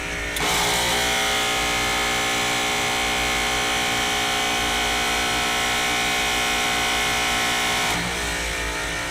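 The compressor of an AAON rooftop HVAC unit going through its unloading cycle. About half a second in, a sudden louder buzzing rush with many steady tones sets in. It holds for about seven and a half seconds, then drops back to the compressor's ordinary running hum. This is the compressor unloading its Freon and oil through the system, normal running rather than a fault.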